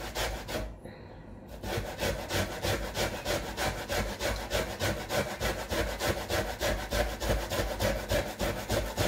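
Cocoyams being grated by hand on a metal box grater: quick, even rasping strokes, about five a second, with a short pause about a second in.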